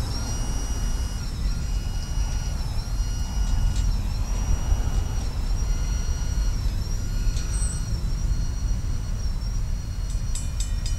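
Steady low rumble of a departing diesel freight train, with a set of high steady tones that dip together about every second and a half, and a few sharp clicks near the end.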